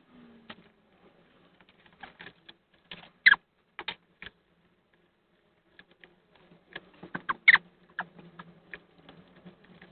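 Small engine parts clicking and tapping as they are handled and set down on a workbench during a scooter carburetor teardown: scattered clicks, loudest about three seconds in and again near the end, over a faint steady hum.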